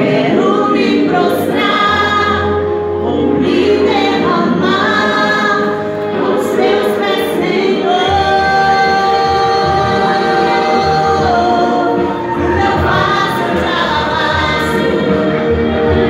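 A woman singing into a microphone, with a long held note about eight seconds in.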